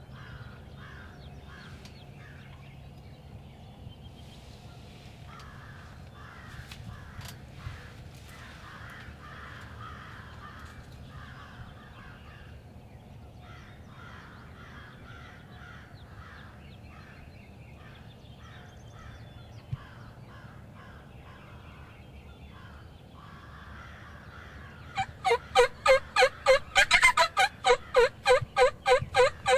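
A loud, fast run of about sixteen evenly spaced turkey yelps, roughly three and a half a second, starting near the end.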